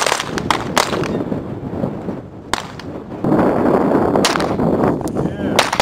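Single shots from an M9 9 mm pistol, about six at uneven intervals, each a sharp crack with a short ring after it. From about three seconds in, a loud rushing noise runs underneath the shots.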